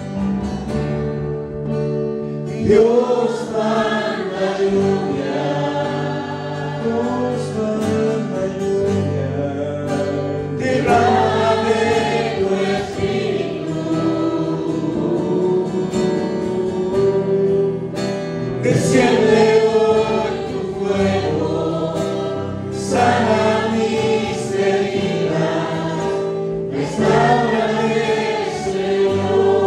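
A choir singing a Christian worship song over instrumental accompaniment, with sung phrases coming every few seconds over steady held notes.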